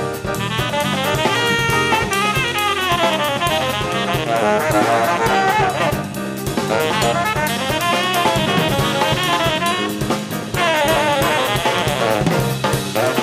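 Tenor saxophone playing fast jazz runs that sweep up and down, over a drum kit and band accompaniment in a live jazz combo.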